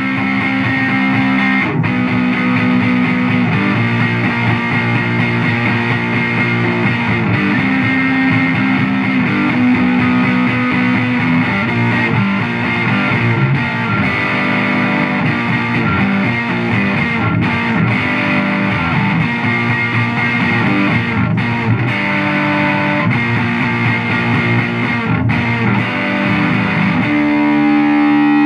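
Electric guitar played with heavy distortion through a Laney amplifier: a loud, dense instrumental passage of held notes that change every second or two.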